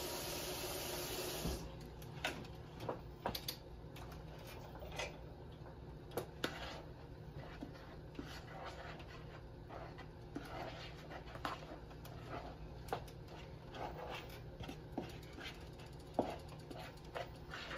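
Warm water poured into a bowl of pizza crust mix, a steady hiss that stops about a second and a half in. Then the dough is stirred and folded over in the bowl, with irregular light knocks and scrapes of the utensil against the bowl.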